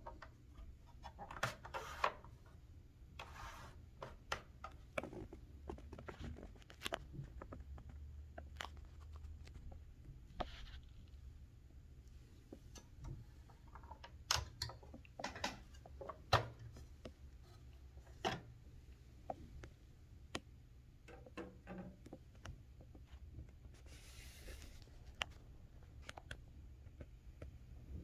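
Scattered, irregular light clicks and knocks, with a few short scraping rustles, as a 1976 Smith Corona Super-G manual typewriter's plastic body and cover are handled.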